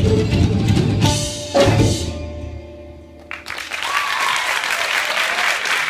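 A live band with tabla, drum kit, violin, bass and guitars plays its final bars and ends the piece on two sharp ensemble hits, about one and one and a half seconds in. The hits ring out and fade, and the audience breaks into applause about three seconds in.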